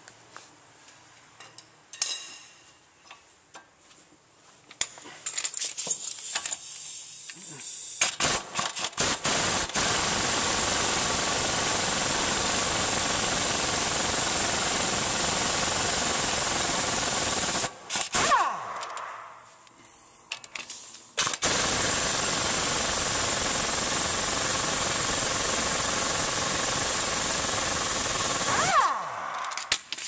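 Pneumatic impact wrench hammering as it spins out threadlocked brake caliper bracket bolts: a few short bursts, then a run of about ten seconds, a pause, and a second run of about eight seconds.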